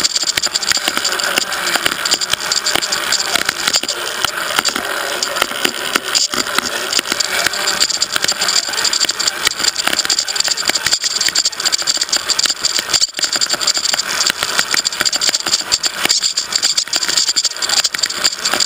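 Onboard sound of an HSP RC rock crawler driving: the electric motor and gears give a steady high whine while the chassis rattles and clatters continuously.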